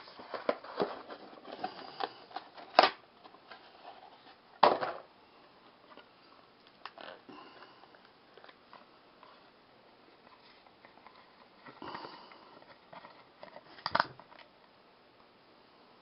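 Cardboard box and packaging handled by hand: rustling and scraping with a few sharp clicks and knocks, the loudest a little under 3 s in, near 5 s and near 14 s, with a quieter stretch in the middle.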